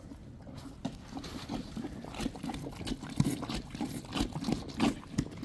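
Horse eating feed from a plastic bucket: irregular crunching and chewing with small knocks and rustles, a few a second.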